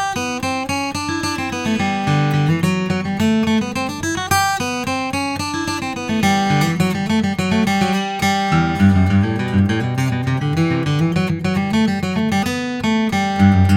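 Taylor 614ce Limited acoustic guitar, with a European spruce top and a striped African ebony back, played in a steady run of picked notes and chords over a moving bass line.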